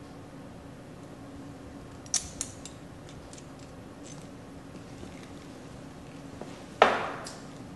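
Lab glassware being handled on a bench: a few light clinks about two seconds in, then one loud knock near the end as a glass item is set down, over a steady low hum.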